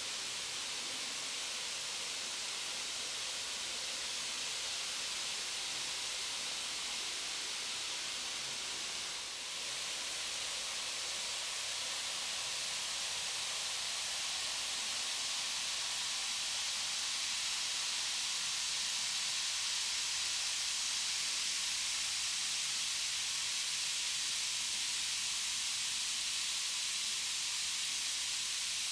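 Carbonated bath bomb fizzing steadily in water as it dissolves, giving off a continuous hiss of bursting bubbles. The fizz dips briefly about a third of the way in, then grows slightly louder.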